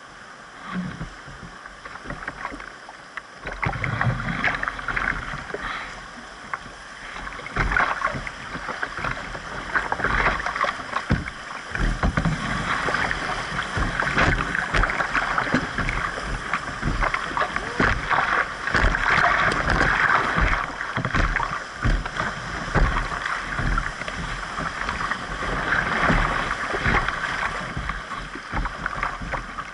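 Whitewater rushing and splashing around a canoe running a rapid, with paddle strokes and short knocks and splashes against the hull; it grows louder about four seconds in.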